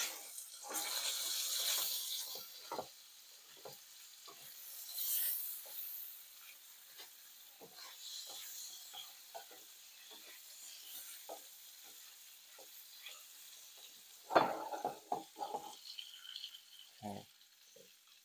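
Pancake batter sizzling in a hot frying pan, with a utensil stirring, scraping and clicking against the cookware. The sizzle is strongest in the first couple of seconds and again around five seconds in, and a quick run of louder knocks comes about fourteen seconds in.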